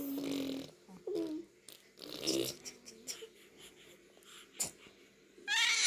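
Baby's breathy giggles and short coos with quiet gaps between them and a sharp click about four and a half seconds in, then a loud, high-pitched squeal of delight starting near the end.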